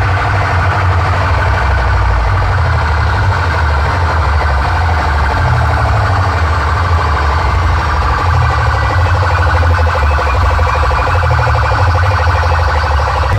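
Truck-mounted DJ loudspeaker stacks playing very loud, with heavy bass and a shrill, rapidly pulsing siren-like electronic tone over it.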